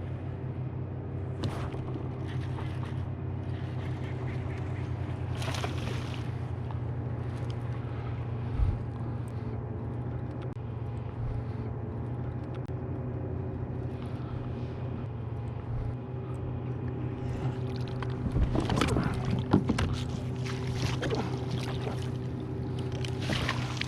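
A small motor hums steadily at a low, even pitch throughout. About 18 to 21 seconds in, a run of knocks and splashy handling noises rises over it.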